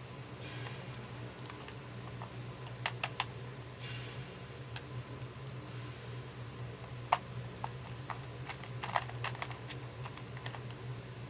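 Small hard plastic toy pieces clicking and tapping as fingers fit miniature accessories into a plastic toy purse case: irregular light clicks with a few soft scrapes, the sharpest click about seven seconds in and a quick run of clicks around nine seconds, over a low steady hum.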